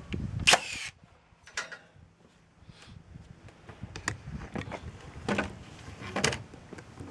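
A handful of irregular knocks spaced a second or more apart, with a brief scrape or creak about half a second in.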